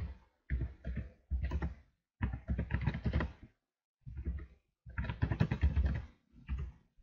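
Computer keyboard being typed on in about six short bursts of rapid keystrokes, with brief pauses between the bursts.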